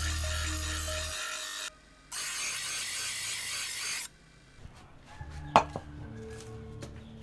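Two long abrasive rubbing strokes on the old knife blade, each about two seconds, the second ending about four seconds in; then a single sharp knock about five and a half seconds in. Background music underneath.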